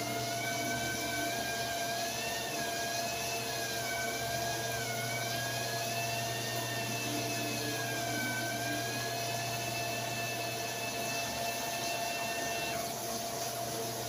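Portable mini turbo washing machine running submerged in a basin of water and churning clothes: a steady motor hum with a higher whine that wavers up and down in pitch and drops out near the end.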